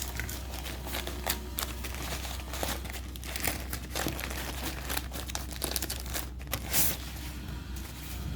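Packaging crinkling and tearing as it is handled and opened by hand, a run of short sharp crackles with one louder rustle near the end.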